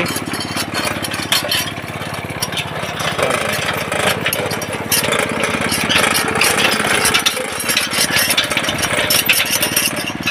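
Honda GX80 80 cc single-cylinder four-stroke engine on a belt-drive single-wheel hand tractor, running steadily just after being pull-started.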